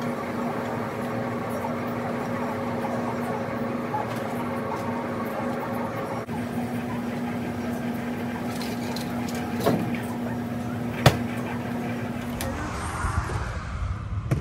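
Steady machine hum of running laundromat washers and dryers, with light clatter of clothes and machine doors being handled and a single sharp knock about eleven seconds in. Near the end the hum stops and gives way to open-air outdoor noise.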